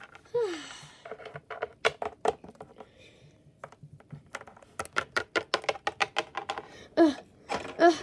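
Quick runs of light clicks and taps: small hard-plastic toy animal figurines being hopped and set down on a tabletop. A few short voiced sounds from the child come in, one near the start and two near the end.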